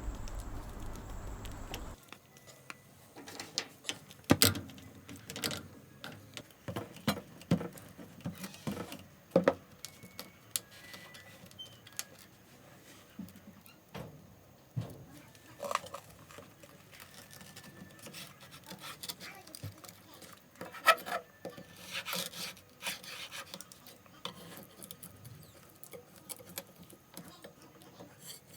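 Irregular clicks, knocks and clatters of a kitchen utensil working whole peanuts into melted sugar, some in quick clusters.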